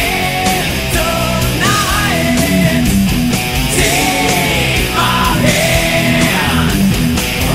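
Loud heavy rock music with a steady driving beat and a bending melodic line.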